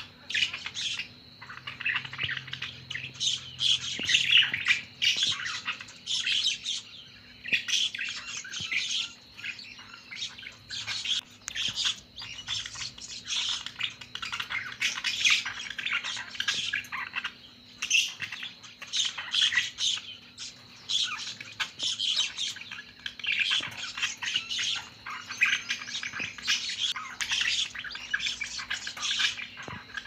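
Pet budgerigars chattering and warbling: a steady stream of rapid chirps and short squawks, with barely a pause.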